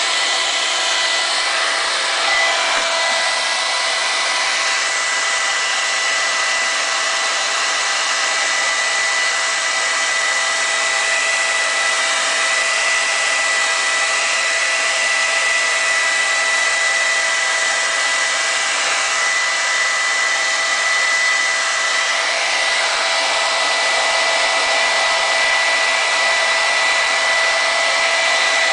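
Handheld hair dryer blowing steadily at close range: a constant rush of air with a steady high whine from its motor.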